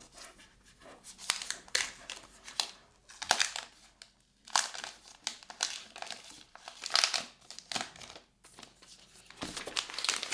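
Packaging crinkling and rustling as it is handled and pulled away during an unboxing, in irregular bursts.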